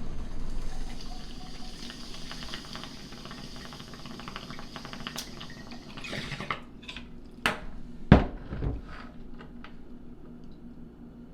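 Water sound with a fine crackle for about six seconds, fading, then a few sharp knocks, the loudest a thud about eight seconds in.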